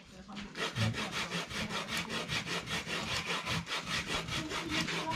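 Rhythmic scraping, about five strokes a second, of food being ground or grated by hand in a bowl.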